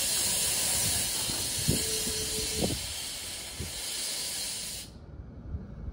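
Loud hiss of compressed air venting from a stopped NJ Transit multilevel commuter train, cutting off suddenly about five seconds in, over the low rumble of the train. A short steady tone sounds for about a second near the middle.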